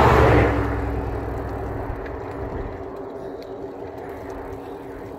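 A motor vehicle passes close by on the road. Its rush of engine and tyre noise is loudest at the start and dies away over about two seconds, leaving a quieter steady hum with a few faint ticks.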